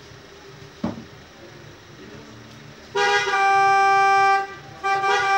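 A loud, steady, single-pitched horn sounds in two long blasts, the first starting about three seconds in and the second after a short gap. A short knock comes about a second in.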